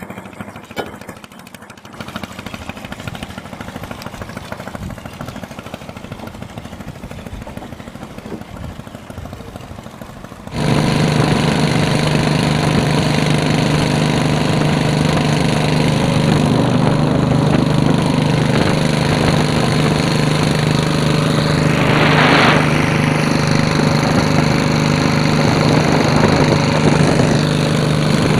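Kelotok boat engine running, at first quieter, then from about ten seconds in much louder and steady at high speed. A brief rushing noise sounds about two-thirds of the way through.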